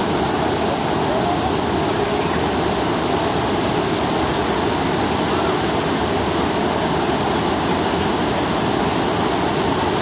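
Whitewater of the Tortum Waterfall cascading over rocks and ledges, rushing loudly and steadily.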